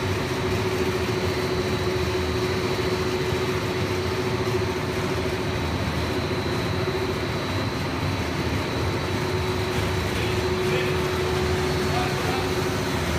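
AB co-extrusion LDPE blown film line running: a steady machine drone with a constant hum and a faint high whine.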